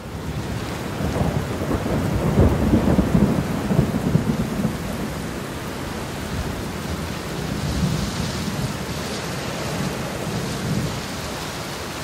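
Thunderstorm: rumbling thunder over steady heavy rain, the rumble loudest a second or two in and then settling into a steady downpour.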